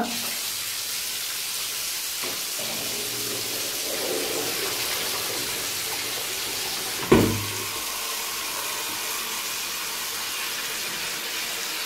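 Water running steadily, a hiss that starts at once and holds even, with a single sharp thump about seven seconds in.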